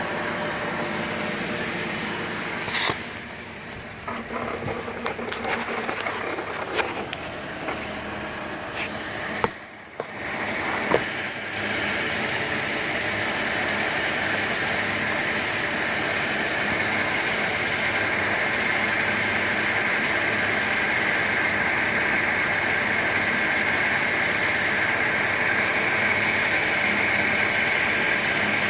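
2008 GMC Acadia's 3.6-litre V6 running with a rattle and a steady high whine from the accessory drive, which the owner takes for a failing pulley bearing. The whine grows louder through the second half.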